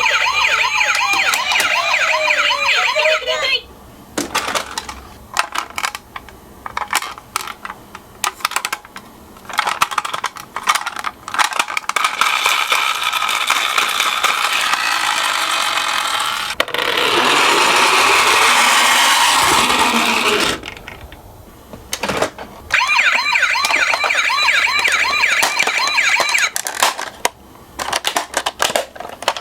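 Toy ambulance's electronic siren sounding a fast warbling wail that cuts off and restarts several times. Plastic clicks and rattles of the miniature cars running down the slope fill the gaps, and a few seconds of louder rushing noise come past the middle.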